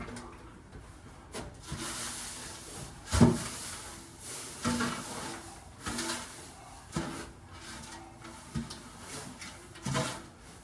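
Irregular scraping and knocking, with several louder knocks spread through it.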